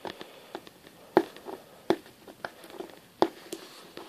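Hands handling a shoe close to the microphone: scattered light taps and rubs with a few sharper clicks, the loudest about a second in.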